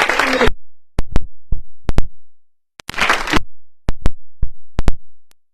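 Scattered single handclaps, about a dozen sharp claps at an uneven pace with quiet between them, and a brief burst of clapping about three seconds in.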